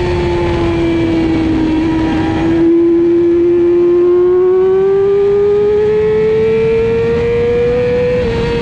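Middleweight supersport racing motorcycle's engine at high revs, heard from on the bike: its pitch sags slightly, then climbs steadily for several seconds as it pulls hard, with a small drop in pitch near the end. Wind and road noise rush underneath.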